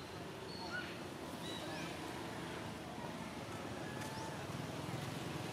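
Outdoor ambience: a steady low rumble with a few faint, short high chirps scattered through it.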